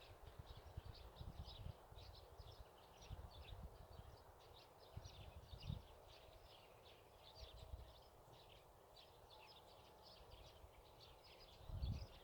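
Faint countryside ambience: many small birds chirping and twittering steadily, with occasional low rumbles, the strongest near the end.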